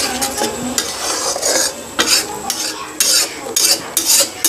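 Flat spatula scraping and stirring a thick onion-tomato masala as it fries in a kadai. It is a string of scrapes against the pan, coming thicker from about two seconds in.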